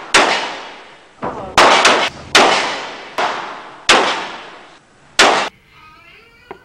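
Smith & Wesson .357 Magnum revolver fired in a string of six or seven loud shots over about five seconds, each shot ringing out in the echo of an indoor shooting range.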